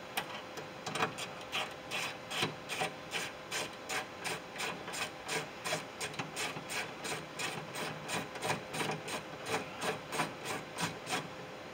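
Hand ratchet wrench clicking in quick, even back-strokes, about three to four a second, as it backs out the 10 mm bolts holding a Ford F150 window regulator inside the door.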